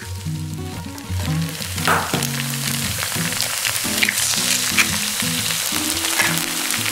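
Eggs frying with sliced onions in a nonstick pan, sizzling steadily, over background music. A couple of sharp ticks come about four seconds in as a second egg goes into the pan.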